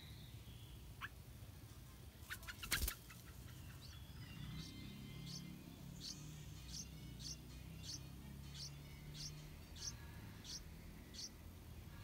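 Yellow-vented bulbul nestlings begging: a run of short, high, downward-sliding peeps, about two a second, starting about four and a half seconds in. Before them, a brief cluster of sharp clicks is the loudest sound.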